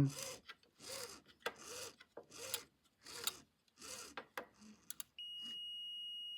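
Rock-Ola 1448 jukebox program assembly being turned by hand: five short noisy strokes about 0.8 s apart, then two sharp clicks. About five seconds in a steady high test tone comes on, signalling that the cam arm has dropped into the gap and closed the outside micro switch.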